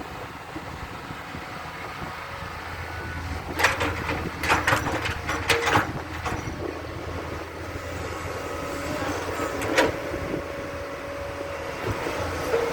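Komatsu PC100 hydraulic excavator's diesel engine running steadily, with a run of sharp metallic clanks and squeals about four to six seconds in and another clank near the end.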